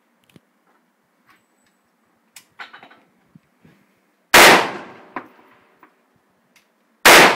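AR-15 rifle fired twice, about two and a half seconds apart, each loud shot trailing off in a fading echo. A few faint clicks and a light metallic clink come before the first shot.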